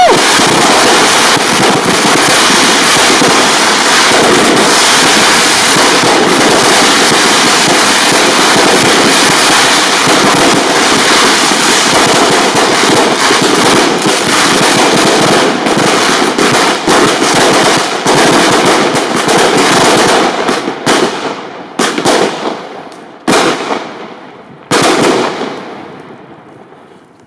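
A firework compound of eight Weco Beastmaster batteries and twenty Lesli Gold fired together. It makes a dense, unbroken barrage of crackling and bangs for about twenty seconds. The barrage then thins to a handful of separate bangs and dies away near the end.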